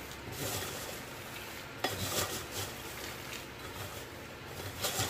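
A metal slotted spoon stirs freshly fried peanuts in a plastic colander, the nuts rustling and the spoon scraping. The spoon knocks sharply against the colander about two seconds in and again near the end. The hot peanuts are being tossed to drain off their excess oil.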